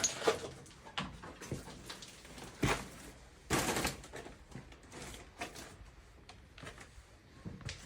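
Scattered small knocks and clicks of hands and tools handling things, with a sharper knock and then a short scraping rush about three seconds in.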